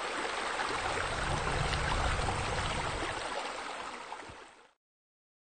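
A steady rushing noise, water-like, with a low rumble underneath, swelling slightly then fading out and stopping about four and a half seconds in.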